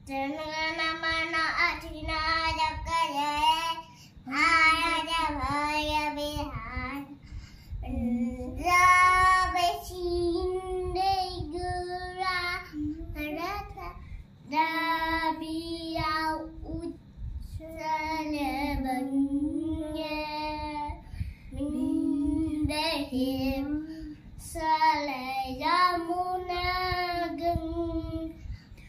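A young girl singing a song alone in a high child's voice, phrase after phrase with short breaths between them.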